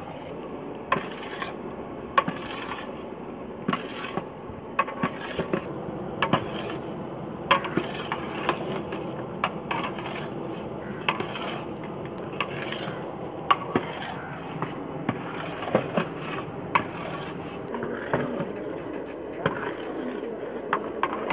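Long metal stirrer scraping and knocking against the side and bottom of a large aluminium cooking pot, stirring roasting semolina and sugar syrup; sharp clinks come irregularly, about one every second or so, over a steady scraping noise.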